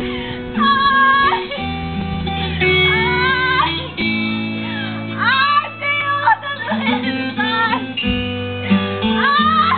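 Music: a song with a singing voice gliding between held notes over guitar and sustained low bass notes.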